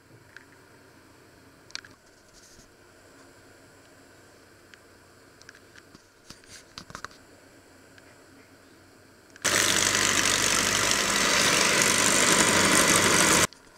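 Electric hand mixer whipping egg whites in a stainless steel bowl: a loud, steady motor whir that starts suddenly about nine seconds in and cuts off about four seconds later. Before it, a few faint clicks and knocks of utensils being handled.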